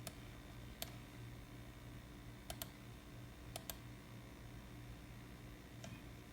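Faint, light sharp clicks, about seven, two of them in quick pairs near the middle, over a steady low hum.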